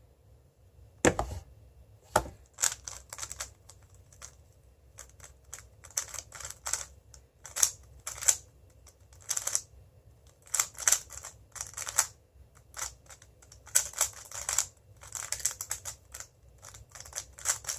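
Moyu WeiLong GTS2M 3x3 speedcube being turned fast during a timed solve: bursts of rapid plastic clicking and clacking from the layer turns, broken by short pauses. A low thump about a second in and another about two seconds in.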